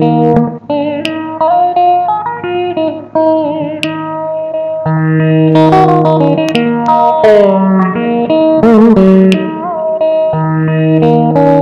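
Electric guitar played through a multi-effects pedal: a slow lead melody of held notes with vibrato and bends, over a steady low held note.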